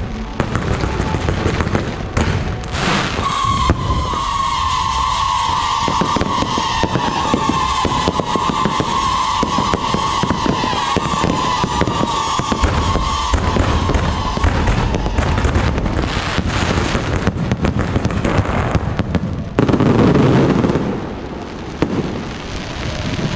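Aerial fireworks display: a dense, continuous crackle of shells bursting and popping. A steady high tone sounds over it for about ten seconds from a few seconds in, and a heavier, louder volley of bursts comes near the end.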